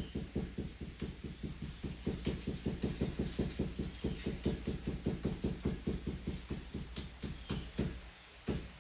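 Rapid, even patting and tapping, about five or six knocks a second: clay being pressed and pounded by hand into a plaster-hydrocal mold. The knocking stops near the end.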